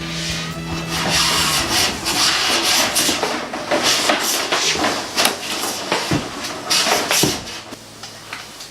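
Rough scraping and rasping on wood, in irregular strokes with sharp knocks, loudest a couple of seconds before the end.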